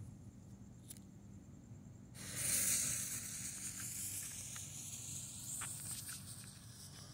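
The lit fuse of a small Brothers Pyrotechnics 'Sliver of Silver' fountain catching about two seconds in, then hissing steadily as it spits sparks.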